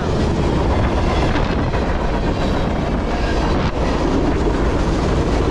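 Freight train cars rolling past: a steady, continuous noise of steel wheels on rail.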